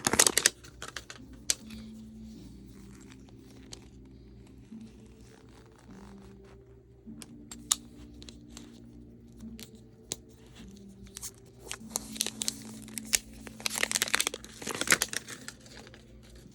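Paper wrapping on a Mini Brands toy capsule being torn and crumpled, in rustling bursts at the start and again about twelve to fifteen seconds in, with scattered small clicks in between.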